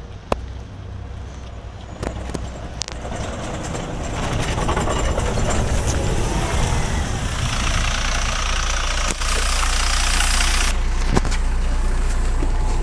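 MAZ-103 city bus pulling in close and stopping, its engine noise growing louder and then settling into a steady idle hum. About halfway through there is a hiss of compressed air from the bus's pneumatics lasting about three seconds. A few sharp knocks sound along the way.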